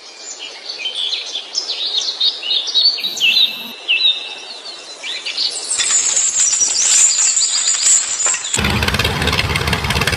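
Small birds chirping and twittering in quick short phrases. About eight and a half seconds in, a louder steady motor-like running sound cuts in suddenly.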